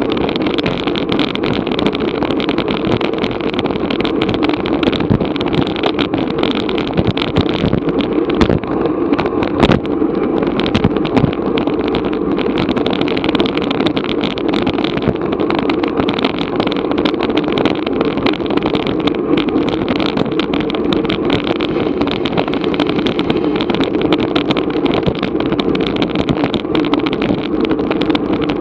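Steady rush of wind and road noise on a bicycle-mounted Garmin VIRB action camera's microphone while riding, with many small clicks and rattles throughout.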